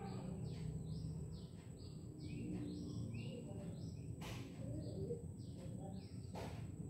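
Birds chirping over and over in short, falling chirps, over a steady low background rumble and a thin high whine. Two sharp clicks come a little past the middle and near the end.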